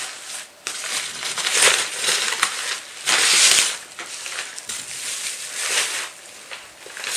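Packaging being pulled and torn open by hand, crinkling and rustling in uneven bursts, loudest about three seconds in, as a wrapped package of dried fish is unwrapped.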